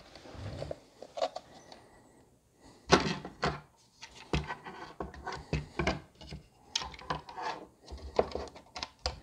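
Parts of a SyQuest SparQ external drive being put back together by hand, with a screwdriver: irregular clicks, knocks and rubbing of plastic casing and circuit board. The sounds are sparse at first and come thick and fast from about three seconds in.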